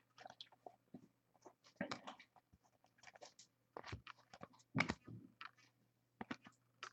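Faint scattered clicks and rustles of trading cards being handled and shuffled, with a slightly louder cluster a little under five seconds in.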